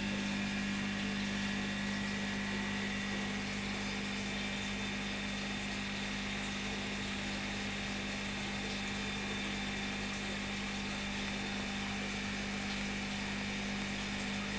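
Aquarium pump running with a steady low hum over a faint, even wash of water.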